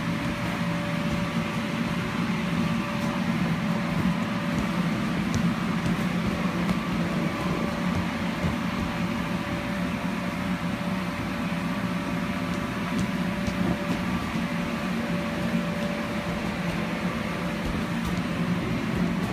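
Electric blower of an inflatable bounce house running, a steady drone that keeps the structure inflated.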